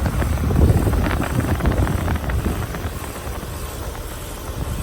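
2016 Keeprite 4-ton central air conditioner condenser running, its compressor and slow-turning fan giving a steady low rumble with a few brief knocks. The unit shakes a lot and has a rattle.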